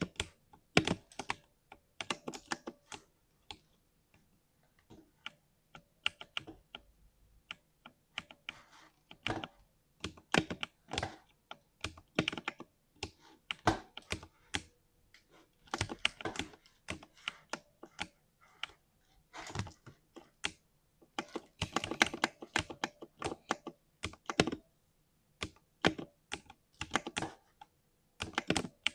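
Compact 60% mechanical keyboard being typed on in irregular bursts of keystrokes with short pauses between them, each keypress a smooth, deep 'thock'.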